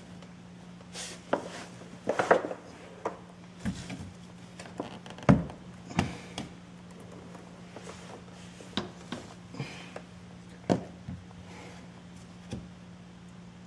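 Scattered knocks and clicks of hand tools and parts being handled while working under a car, the loudest about five seconds in, over a steady low hum.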